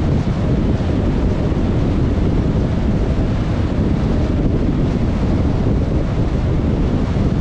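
Steady low rumbling wind and road noise of a car being driven, even throughout.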